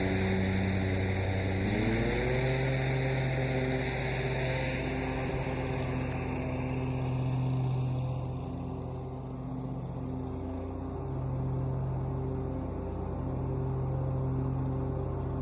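Small petrol engine of lawn equipment running: its pitch climbs about two seconds in, then holds steady with slight dips, as leaves are blown across the driveway.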